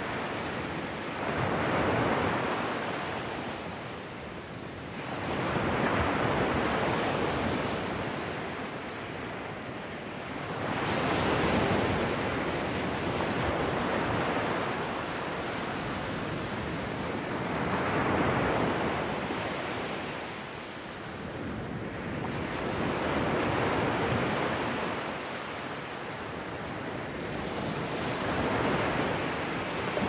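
Ocean surf: waves breaking and washing back, the rush of water rising and falling in slow swells every five to six seconds.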